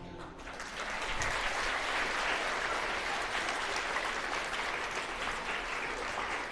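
Audience applauding, swelling in the first second and then holding steady.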